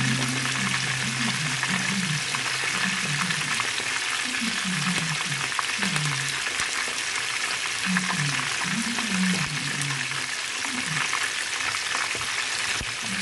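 Two whole fish shallow-frying in hot oil in a pan: a steady crackling sizzle.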